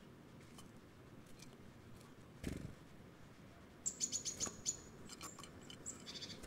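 A single knock about two and a half seconds in, then a small songbird's quick run of high, thin call notes, about eight a second, trailing off into scattered notes.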